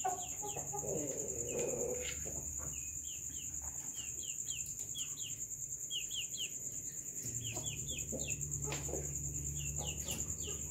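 Domestic chickens vocalising at roost: soft low clucks in the first couple of seconds, then short high chirps in twos and threes throughout. A steady high trill runs underneath, and a low hum comes in about seven seconds in.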